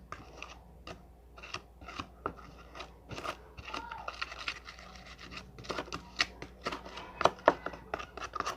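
Homemade slime being handled and pulled up, giving a string of irregular sticky clicks, crackles and squelches.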